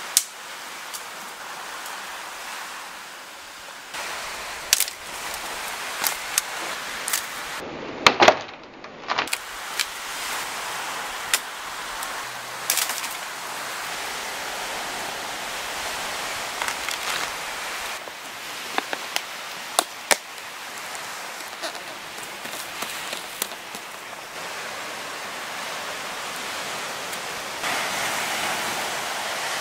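Steady rushing outdoor noise of wind and surf on a beach, with scattered sharp clicks and knocks from handling things in the sand. The rush swells near the end.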